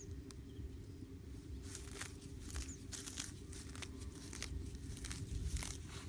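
Grass and stems being pulled and torn up by hand: irregular rustling and crackling snaps over a low, steady hum.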